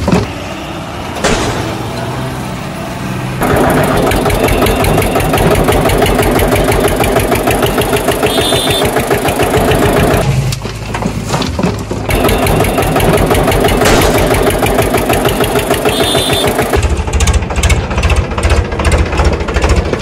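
Tractor engine running with a rapid, even chug. It is quieter for the first few seconds, drops away briefly about ten seconds in, then runs on.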